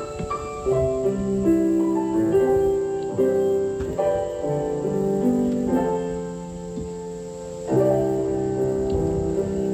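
Slow piano music: sustained chords and single notes held and struck anew every second or two, without singing.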